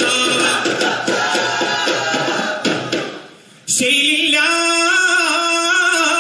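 Duffmuttu troupe singing in chorus over quick strikes on duff frame drums. The drumming and singing drop away about three seconds in, and after a short gap the voices come back together on a long held chant with little drumming.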